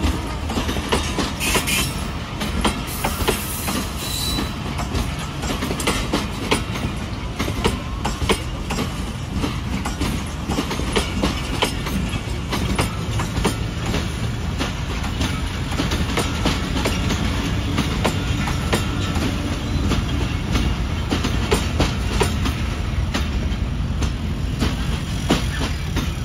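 Container freight train's wagons rolling past over rail joints and points: a continuous low rumble with a dense run of wheel clicks and clunks.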